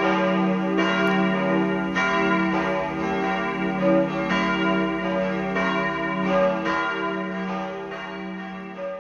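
A peal of church bells ringing, with a new stroke about every second over a low humming note. The ringing fades down near the end.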